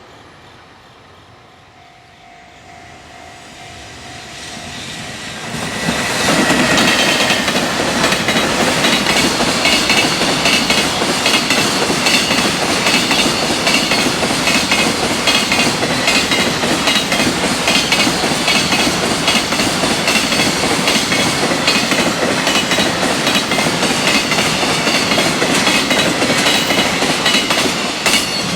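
A freight train draws near and then passes close by at speed. From about six seconds in it is loud: the wheels clatter rapidly over the rail joints, with a high ringing over the clatter.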